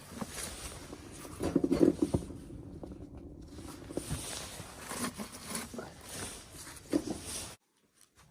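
Irregular knocks, clicks and rustling of things being handled, busiest about a couple of seconds in and again near the end, then cutting off abruptly.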